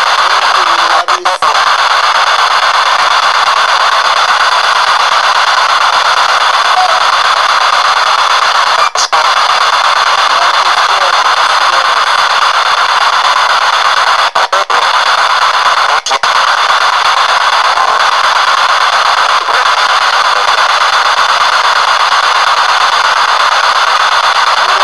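P-SB7 spirit box sweeping through radio stations, played through an external speaker: continuous loud hissing static with a few brief cut-outs.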